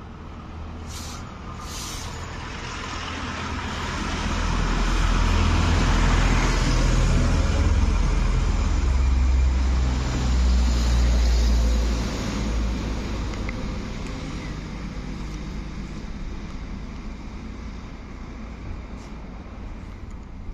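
Road traffic passing close by: a heavy vehicle's deep engine rumble swells over a few seconds, stays loud for several more, then fades as cars go past.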